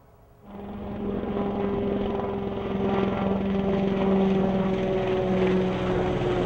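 Piasecki X-49A SpeedHawk compound helicopter flying low past, its main rotor and ducted tail propeller running. It makes a loud, steady hum with a few held tones that sink slightly in pitch, and it cuts in suddenly about half a second in.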